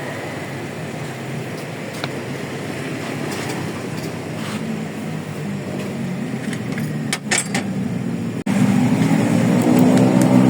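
A motor vehicle engine running amid road traffic, with a few sharp clicks about seven seconds in. After a brief cut, a louder, steady engine hum takes over.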